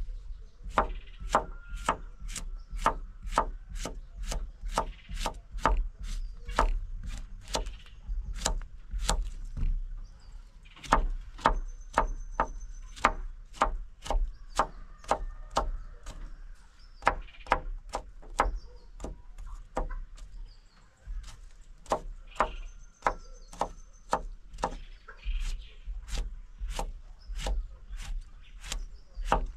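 A large knife slicing a cucumber on a wooden plank: a steady run of sharp chopping knocks on the wood, about two to three a second, with short pauses about a third and two thirds of the way through.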